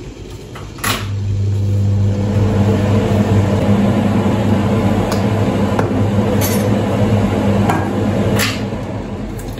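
A mains-powered electrical appliance humming steadily at a low pitch, switching on with a click about a second in and stopping near the end, with a few light clicks and knocks while it runs.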